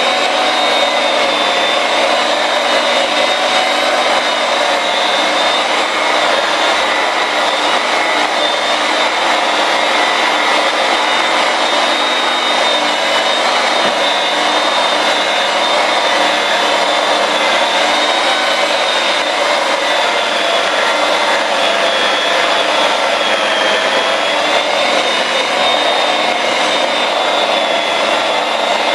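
Hand-held rotary polisher with a foam pad running continuously against a car door panel, a steady electric-motor whine whose pitch wavers slightly. It is cutting back raised clear coat over a filled scratch with cutting compound.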